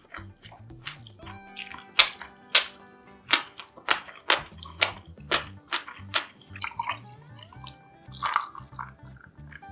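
Close-up chewing of crispy fried tempura: a quick run of sharp, loud crunches about two a second, over background music.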